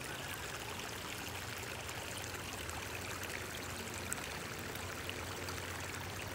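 Shallow water running steadily over gravel in a small stream.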